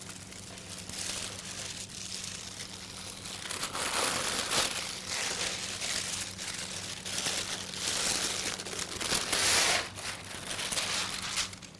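Sheet of baking parchment crinkling and rustling as it is gathered up around a pile of pecans, hazelnuts and pistachios, loudest near the end as the nuts are tipped off the paper into a bowl of caramel.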